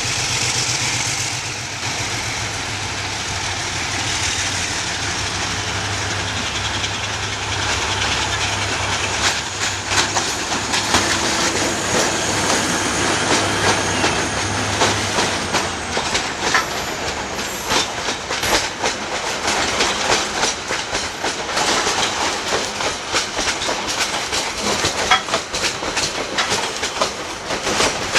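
Diesel locomotives passing with a freight train: a steady low engine hum for the first half or so, then from about nine seconds in a dense clatter of wheels over rail joints as the wagons roll by, the hum fading out past the middle.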